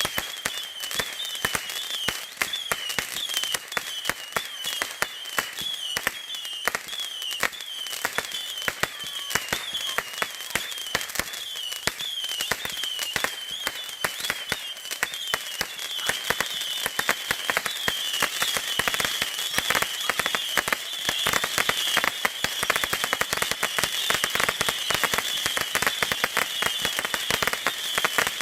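Consumer fireworks crackling: a dense, irregular run of small sharp pops and crackles, with a high warbling whistle over them.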